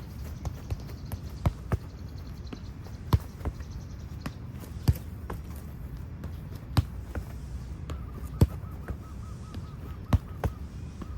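Football being kicked: sharp thuds of foot striking ball at irregular intervals, roughly every one to two seconds, over a low steady rumble.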